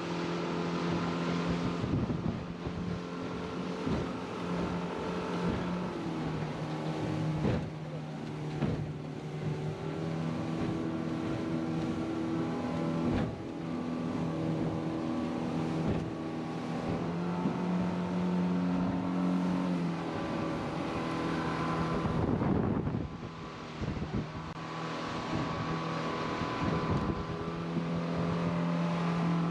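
Boat motor running steadily while under way, its pitch shifting now and then, with wind buffeting the microphone and knocks from the boat in the waves.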